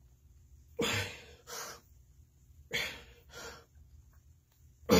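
Heavy, effortful breathing of a man doing push-ups: a loud, sharp breath followed by a softer one, repeating about every two seconds, three times.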